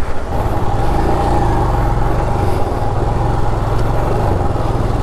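Motorcycle engine running steadily under a continuous rush of noise as the bike rides into a fast-flowing stream crossing.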